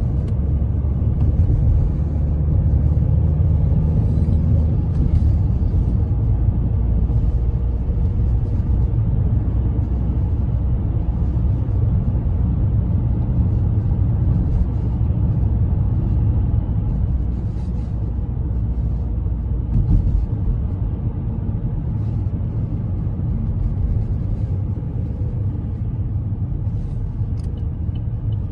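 Steady low rumble of a car's engine and road noise, heard from inside the moving car's cabin.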